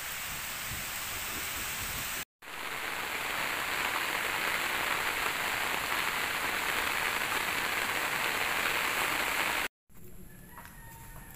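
Steady rain falling on trees and grass, a continuous even hiss. It cuts out abruptly twice, about two seconds in and near the end, and it is heaviest between the cuts and quieter after the second.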